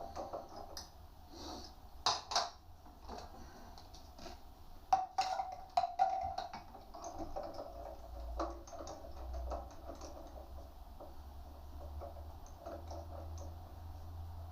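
Light metallic clinks and taps of tools and steel being handled, with a few sharper knocks about two seconds in and again around five to six seconds in, over a faint steady hum.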